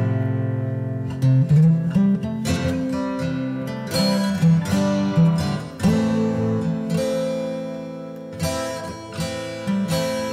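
Background music: acoustic guitar playing a gentle melody of plucked notes and chords.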